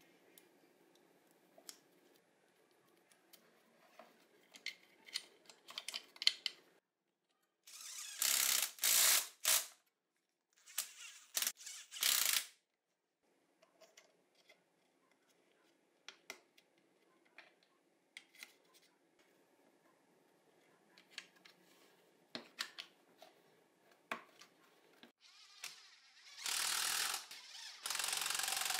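Mechanical ratcheting in short bursts of a second or two, twice near the middle and again near the end, with scattered light clicks of parts and tools being handled in between.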